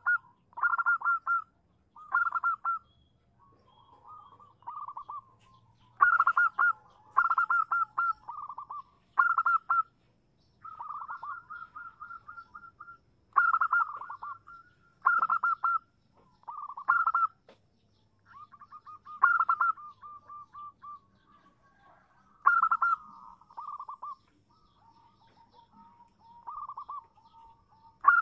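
Zebra dove (perkutut) calling: short, rapid bursts of trilling coos, repeated in groups every second or two, with softer, lower phrases in between. It is presented as a female's call, used as a lure to make males answer.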